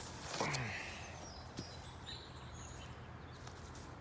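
Faint rustling and small clicks of peach-tree leaves and twigs as fruit is picked off the branches, with a brief swish and a sliding sound falling in pitch about half a second in. Faint bird chirps in the background.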